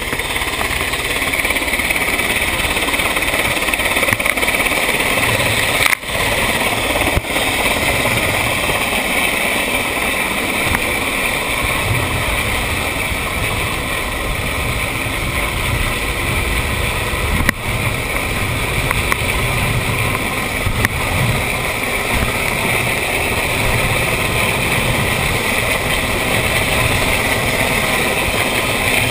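Steady rush of wind and spray with the drone of the outboard engine of an RNLI D-class inflatable lifeboat running at about 21 knots through swell, with an RAF Sea King helicopter flying close alongside. The noise drops briefly twice, about six and seventeen seconds in.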